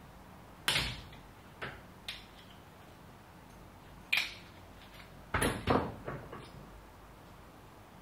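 Long-handled hand rivet tool being worked on a blind rivet at the bench vise: a string of about eight sharp metal clacks and snaps, one loud snap about a second in and a tight cluster a little past halfway.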